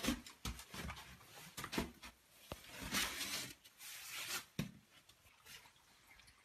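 Faint rustling, scraping and a few sharp knocks of a rescuer moving through snow-filled debris in a cramped dark room, with short bursts of hiss.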